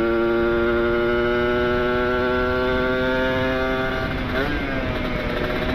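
Kawasaki Ninja RR two-stroke engine running through an ABRT20 aftermarket exhaust while riding, holding a steady note with wind rushing over the microphone. About four seconds in, the note breaks up and wavers.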